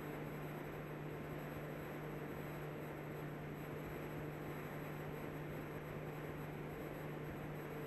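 Steady hiss with a constant low hum: the background noise of the recording, with no voice or other event.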